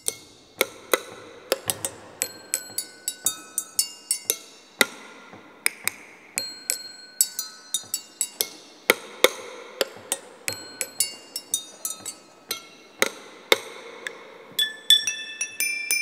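Two thin sticks tapping and striking an assortment of small tabletop objects (glass dishes, a bottle, small wooden boxes) as improvised percussion, in a quick, uneven rhythm. Some strikes give bright clinking, ringing glass tones and others dull wooden knocks; toward the end the ringing tones hang on longer.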